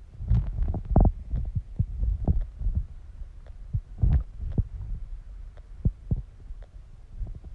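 A person's stomach and bowels gurgling as they digest: irregular low rumbles broken by quick bubbling pops, the strongest about a second in and again about four seconds in.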